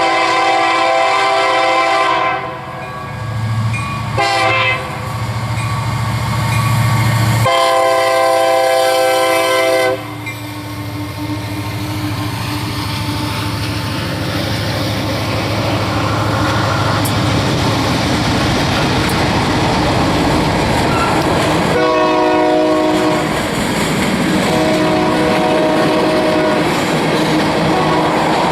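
Union Pacific diesel locomotives sounding their air horn in a series of blasts: a long one, a short one and another long one in the first ten seconds. The locomotives' engines then drone past, followed by the steady rolling of the empty tank cars on the rails. A short horn blast comes a little over twenty seconds in and a fainter one near the end.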